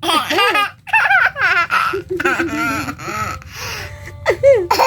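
Young child laughing in a run of short, high-pitched bursts that rise and fall in pitch.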